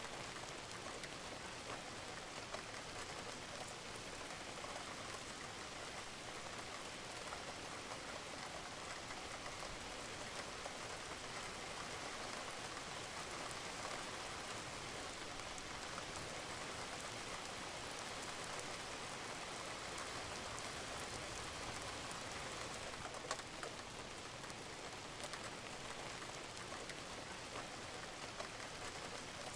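Steady rain falling on a roof, with scattered drops ticking now and then.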